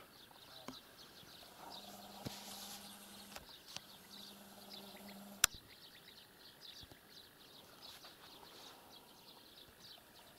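Faint birdsong in open country: many short, high chirps throughout. A faint low hum runs from about two to five seconds in, and a single sharp click comes about five and a half seconds in.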